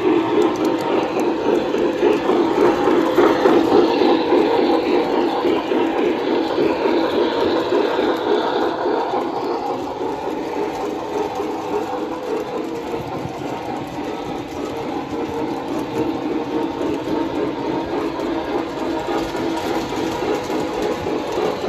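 O scale model trains running on the layout's track: the steady hum and whir of their electric motors and gearing with the rattle of wheels on the rails, loudest in the first few seconds and easing off through the middle.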